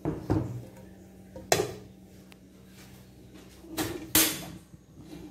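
Kitchen dishes and a metal wok being handled and set down on a hard surface: a handful of sharp knocks and clunks, the loudest about a second and a half in and a close pair around four seconds in.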